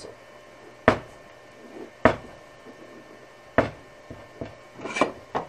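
Hand arbor press being worked to press an oil-impregnated bronze sleeve bushing into a lathe countershaft bracket, giving about six sharp metal clunks at irregular intervals as the lever is pulled.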